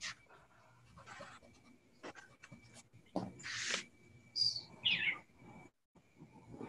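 Graphite pencil strokes scratching across drawing paper, a few short passes. About four and a half seconds in, two short squeaky calls fall in pitch, from an animal. A faint steady high tone runs underneath.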